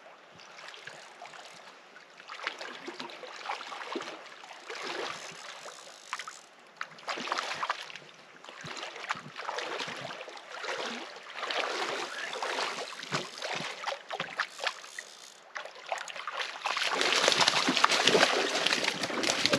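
Small waves lapping and splashing against shoreline rocks, in uneven surges every second or two, loudest near the end.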